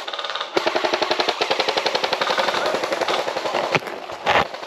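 Airsoft guns firing on full auto: a fast, even rattle of shots, more than a dozen a second, running for about three seconds. A single louder crack comes near the end.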